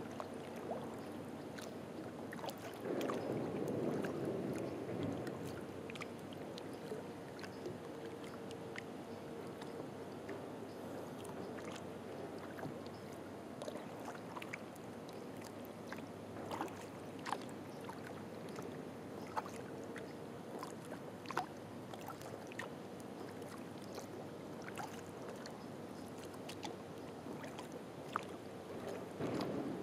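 Kayak being paddled on still water: quiet paddle splashes and drips with scattered small clicks, and a louder swash of water about three seconds in and again near the end.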